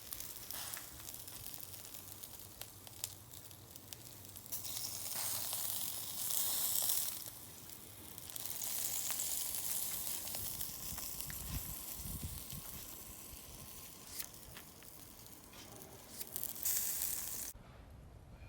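Yakitori chicken skewers sizzling over a wood fire, a steady hiss with small pops and crackles that swells louder twice, then cuts off abruptly near the end.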